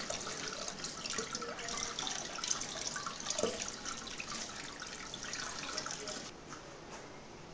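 Kitchen tap running into a metal bowl of water in a sink while hands turn and rub boiled eggs under the stream. The flow of water stops abruptly a little over six seconds in, leaving quieter splashing.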